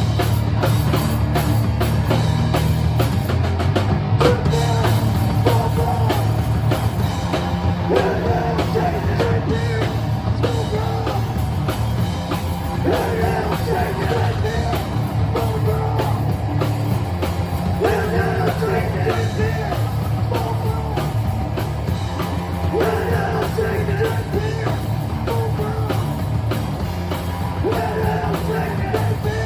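A live rock band playing loud, fast punk/metal: distorted guitars, bass and a pounding drum kit under a shouted, yelled lead vocal.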